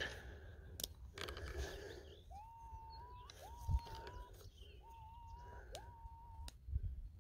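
Minelab CTX 3030 metal detector signalling over a buried target still in the dig hole: four short tones, each sliding up and then holding, about one a second, as the coil is swept over the hole. Before them, a knock and a brief scrape of soil being moved, with a few low thuds among the tones.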